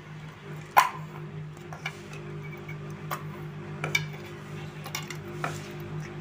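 Chutney being scraped by hand off a stone grinding slab into a steel bowl: scattered sharp clicks and knocks of fingers, stone and bowl, the loudest about a second in, over a steady low hum.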